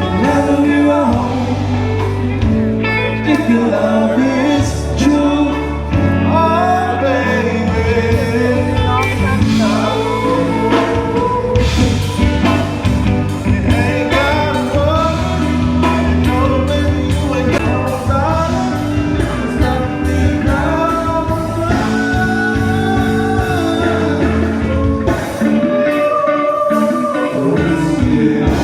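Loud music with a singing voice over guitar, bass and drums in a blues-rock style.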